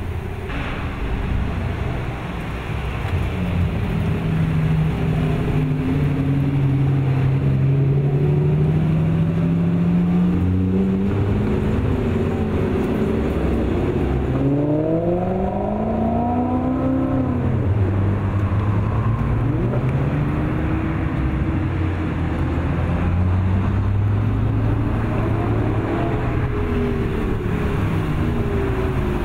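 Sports car engines in a slow procession going by, exhaust notes swelling and fading as each car passes. About halfway through, one engine revs up and falls back sharply, the loudest moment.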